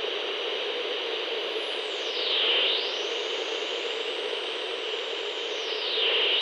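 Analog radio being tuned across the dial: a steady hiss of static with a whistling tone that slides down about two seconds in, climbs high, then slides down again near the end.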